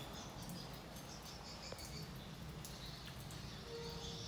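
Faint background of insects chirring, over a low steady hum.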